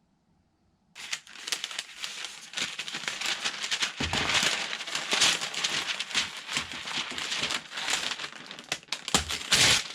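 Crinkling and rustling of stiff material being handled close by, with many small clicks and crackles, starting suddenly about a second in.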